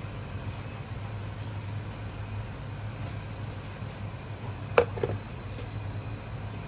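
Steady low hum of kitchen machinery, with a sharp knock about five seconds in and a lighter knock just after it.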